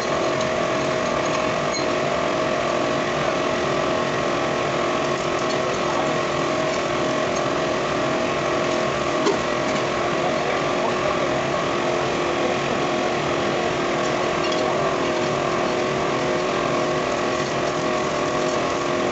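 A machine running steadily with a constant, even hum of several tones and no change in speed.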